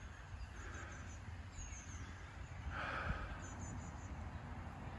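Faint outdoor ambience: small birds chirping high, short notes in quick runs of three or four, over a low steady rumble. There is a brief rustle about three seconds in.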